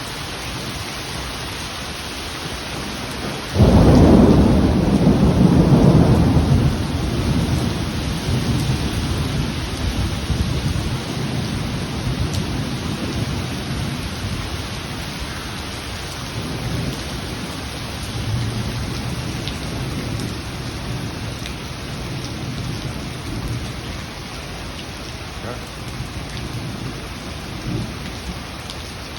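Steady rain falling, with a sudden loud thunderclap about four seconds in that rolls on as a low rumble and fades away over the next several seconds.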